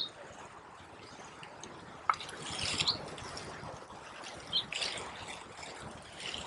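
Faint outdoor background with a few short, high bird chirps and two brief hissing bursts, about two and a half and five seconds in.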